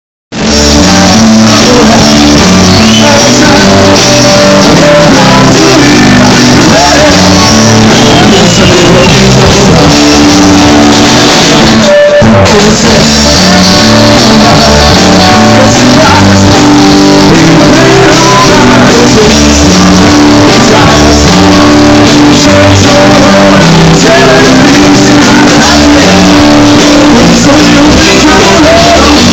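Live rock band playing loud, with electric guitar and a singer. The music drops out briefly about twelve seconds in.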